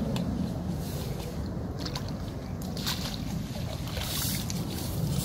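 A hooked F1 carp hybrid splashing and thrashing at the surface as it is played in close, in several short splashes with a longer one near the end, over steady wind rumble on the microphone.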